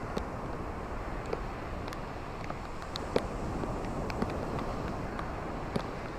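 Ocean surf washing onto a beach: a steady rush of water that swells slightly in the middle, with many small scattered crackles and clicks.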